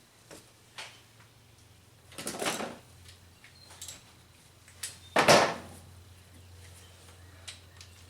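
Metal hand tools being handled on an engine under repair: a few light clicks and two short clattering, scraping noises, about two and five seconds in, the second the louder.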